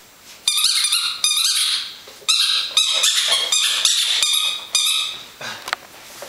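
Squeaky dog toy squeezed over and over, in quick runs of high-pitched squeaks that start about half a second in and come in three bouts.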